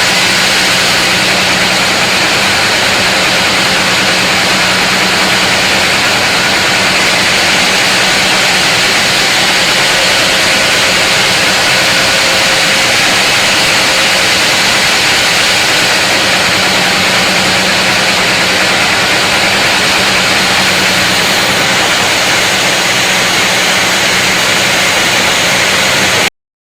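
Large sawmill saw running steadily through a big mahogany log: a loud, even rushing noise over a constant low hum, cutting off suddenly near the end.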